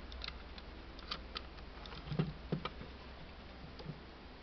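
A scale model car being handled and turned over on a wooden table: light scattered clicks, then two dull knocks a little past halfway as it is set down.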